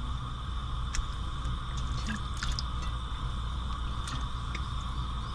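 Raw yellowtail head and bone pieces laid by hand into a stainless steel pot: a few soft wet squishes and light clicks, over a steady background hum.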